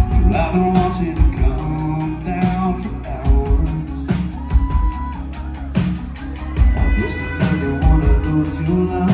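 Live country band playing: a male lead vocal over electric guitars and a drum kit, with regular drum hits.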